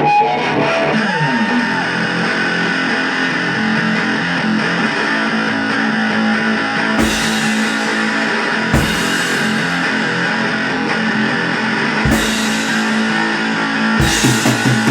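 Live rock band playing: electric guitars hold a sustained, droning chord with a pitch glide about a second in, and loud crashes strike about seven, nine and twelve seconds in before the drums pick up near the end.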